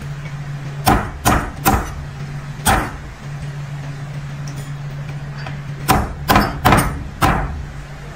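A cleaver chopping a raw whole chicken on a thick round wooden chopping block: four sharp chops in the first three seconds, a pause, then four more about six seconds in. A steady low hum runs underneath.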